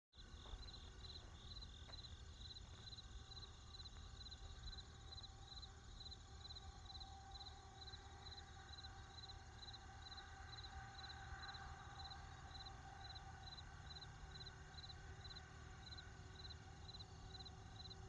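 Crickets chirping in an even rhythm, about three chirps a second, over a low steady rumble of distant traffic.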